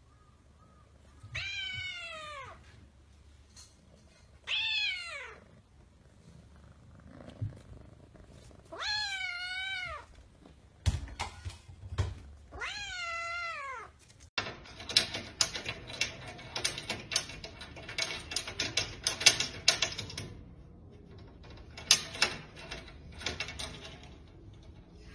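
A cat meowing four times, each meow about a second long and falling or wavering in pitch, with a couple of dull knocks between the last two. About halfway through, the sound changes abruptly to a fast, dense crackle of clicks.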